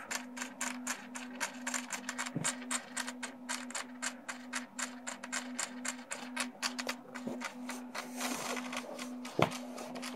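Rudder and aileron servos of a foam RC plane jittering: rapid, irregular clicking over a faint steady hum, with one louder click near the end. This servo chatter happens only when the ArduPlane APM 2.6 flight controller is in stabilized mode.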